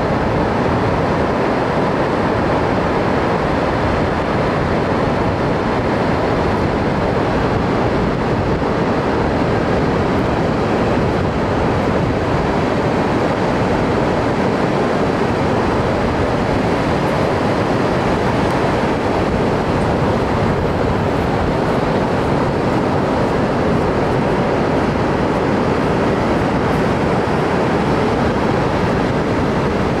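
Pacific Ocean surf breaking on the beach and around offshore rocks: a steady, even roar of waves.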